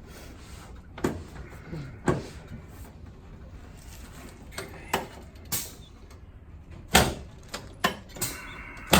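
Irregular knocks, clicks and rustling of a person rolling over on a padded chiropractic treatment table, from lying face down to lying on his back.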